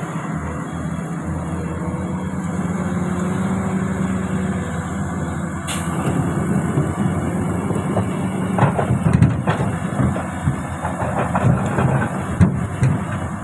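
Komatsu hydraulic excavator running steadily while it picks up boulders, with a sharp crack about six seconds in and then a run of knocks and clanks of rock against the bucket from about eight seconds on.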